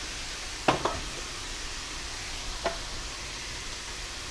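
Ground pork and vegetables sizzling in a stainless steel skillet over a gas flame, a steady soft hiss. A few short knocks sound against it: two close together about a second in and one near the three-second mark.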